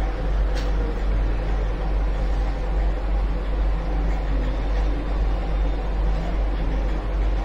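Steady low hum under an even hiss of background noise, with one faint click about half a second in.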